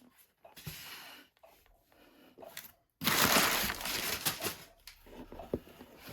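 Keyboard packaging being handled and opened: soft rustling and light knocks, then about halfway a sudden louder scraping rush of cardboard or plastic with small clicks.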